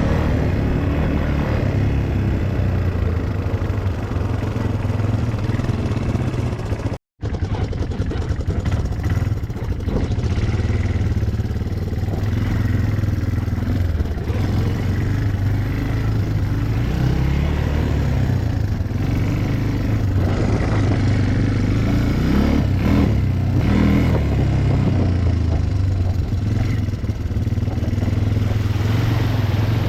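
ATV engine running while being ridden, its sound rising and falling with the throttle, with a brief break in the sound about seven seconds in.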